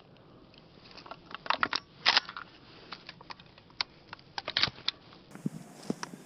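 Scattered sharp crackles and clicks, like handling or rustling noise close to the microphone, with a cluster of louder snaps about one and a half to two and a half seconds in.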